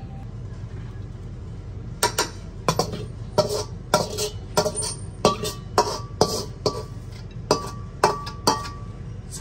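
Metal spatula clinking and scraping against a wok while fried rice is served out onto a plate: about fifteen sharp clinks, roughly two a second, starting about two seconds in, some leaving a short metallic ring.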